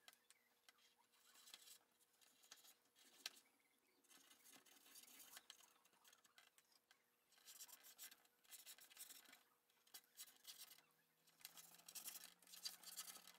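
Near silence with faint, scattered scratches and small taps, denser in the second half: a dry cotton swab rubbing and poking around the knobs and sliders of a cassette multitrack recorder's plastic panel.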